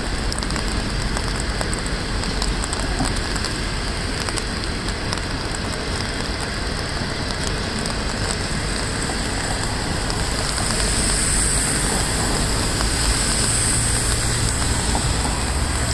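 Steady hiss of heavy rain, with the low rumble of passenger coaches rolling past on the rails. The hiss gets a little louder and brighter about ten seconds in.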